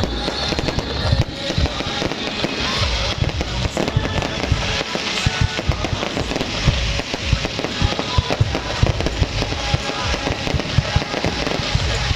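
Aerial fireworks going off in a dense, continuous barrage: low booms overlapping with rapid crackling, with no pause.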